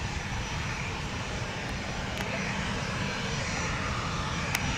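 Jet airliner engines running, a steady rumble with a faint whine that grows slightly louder.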